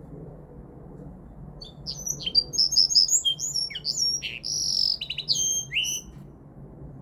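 Linnet × canary hybrid (mule) singing a burst of rapid, high twittering notes that starts about a second and a half in and lasts about four and a half seconds, with one longer held note partway through.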